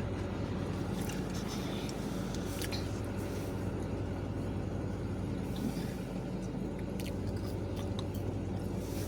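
Chewing with a few faint, scattered mouth clicks over a steady low hum.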